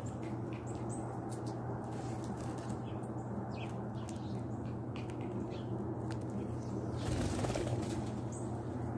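Wings of small birds flapping as they flush off a feeding ledge, loudest about seven seconds in. Short high chirps come throughout over a steady low hum.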